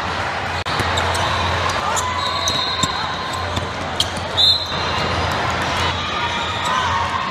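Indoor basketball game: a ball bouncing on a hardwood court and sneakers squeaking, over the steady din of voices in a large hall.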